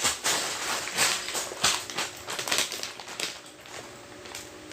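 Plastic bags of building-block pieces crinkling and rustling as they are handled, in irregular bursts, quieter from about three seconds in.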